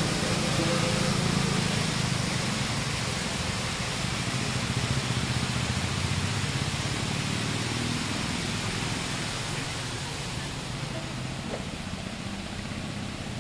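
A steady rushing noise, spread evenly from low to high, with a low rumble under it that weakens over the first few seconds.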